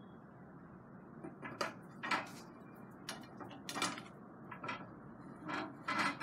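A metal tube pushed through a wooden support block and a bolted wooden slider block fitted onto it: a string of short knocks and scrapes of wood and metal, about one a second, the loudest near the end.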